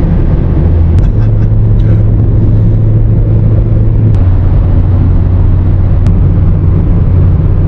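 Van driving at highway speed, heard from inside the cabin: a steady road and engine drone with a low hum. The hum shifts slightly about a second in and again about four seconds in.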